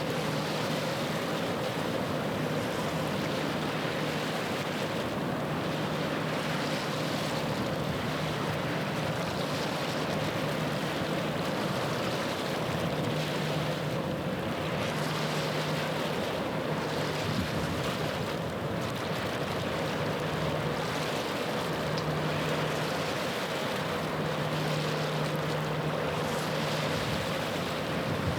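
Low steady drone of a passing ship's engine over a wash of wind and lapping water; the hum swells and eases a few times.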